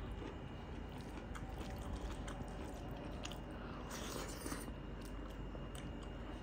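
Close-miked chewing of a mouthful of rice and boiled bitter-gourd pickle, with small wet mouth clicks and a brief louder stretch about four seconds in.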